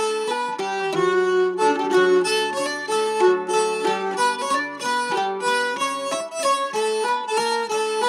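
Instrumental background music: a quick melody of many short notes over a string accompaniment.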